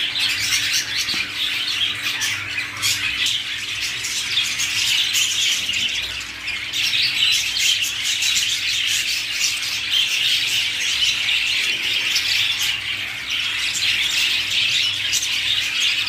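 Many caged pet birds chattering and squawking together, a dense, continuous din of overlapping high-pitched calls. A faint steady hum runs underneath.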